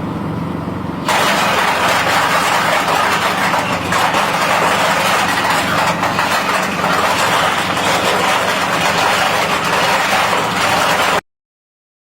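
Nutmeg grinding machine's engine running steadily, then about a second in a much louder grinding noise starts on top of it and carries on steadily before cutting off suddenly near the end.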